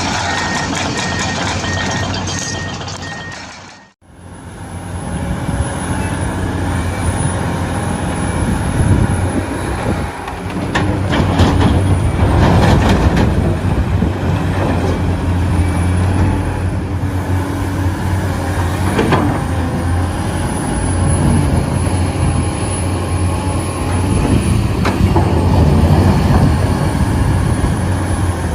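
Radio-controlled excavator and dump truck models running, with a steady engine-like hum and a high, wavering electric whine. A repeating beep like a reversing alarm sounds for the first few seconds, and the sound cuts out briefly at about four seconds.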